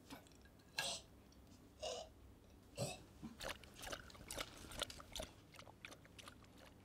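A person chewing food with a few crunching bites about a second apart, then quicker, softer chewing.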